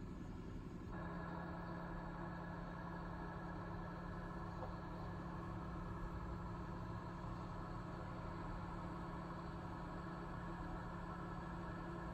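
Fishing boat machinery droning steadily. About a second in it becomes a louder hum with a strong steady tone, which then holds unchanged.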